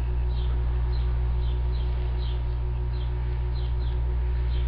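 Steady low electrical hum with faint high chirps about twice a second, like a small bird chirping.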